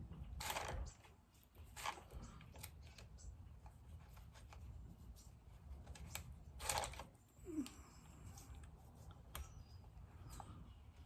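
Scraping and clicking of a battery chainsaw's chain and bar being handled and fitted by hand, with a few short louder scrapes, the loudest about seven seconds in.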